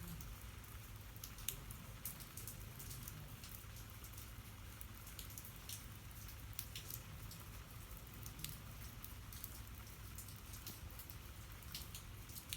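Light rain, with drops ticking irregularly on a hard surface.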